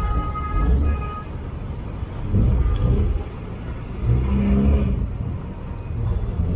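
Car engines in street traffic, the low rumble swelling three times as vehicles pass or rev. A steady high tone stops about a second in.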